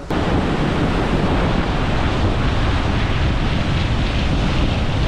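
Loud, steady rush of water from a waterfall and its rapids.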